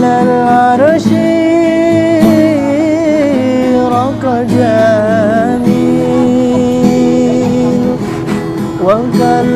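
A voice singing long held notes with wavering ornaments over acoustic guitar accompaniment.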